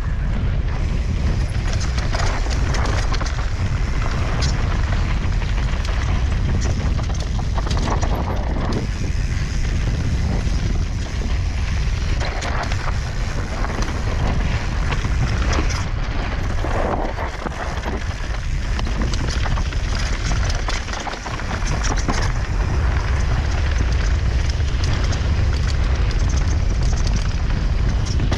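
Mountain bike descending a dry, rocky dirt trail at speed: tyres rolling and skidding on loose dirt, with frequent knocks and rattles from the bike over bumps. Heavy wind buffets the action camera's microphone, giving a constant low rumble that eases briefly twice near the middle.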